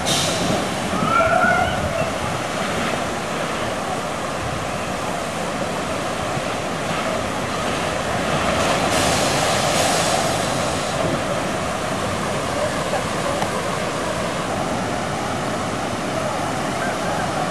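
Steady rush of running water from water slides and pools, with faint voices of people mixed in; it swells a little about nine seconds in.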